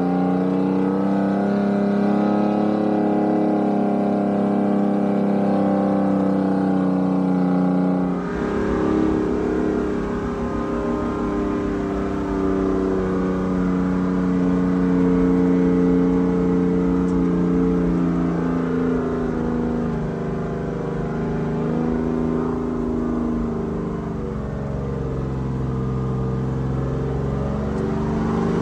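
Detroit Diesel 6-71 two-stroke diesel engine of a 1973 American LaFrance fire engine running on the move. It is first heard from outside beside the exhaust stack, then from inside the cab after a cut about eight seconds in, with the engine speed rising and falling as it drives.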